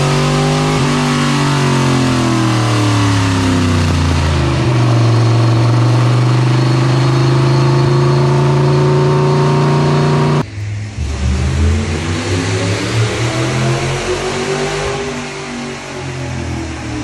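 Dirt modified race car's 602 crate small-block V8 running hard on a chassis dyno pull. Its pitch sags over the first few seconds, then holds steady at high rpm for about six seconds. About ten seconds in, the sound cuts abruptly to a quieter, more distant engine whose pitch rises and falls.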